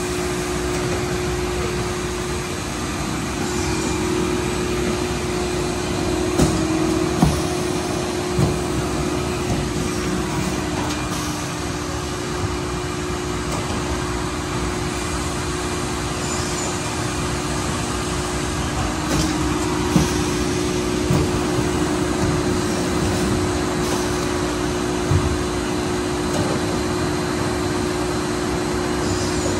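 Blow-fill-seal vial trim-die line and its conveyor running: a steady machine hum with a strong held low tone. A few sharp knocks are scattered through it.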